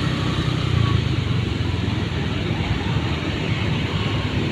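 Motorcycle engines running on a road at slow riding speed: a steady low engine hum with an even hiss of road and wind noise over it.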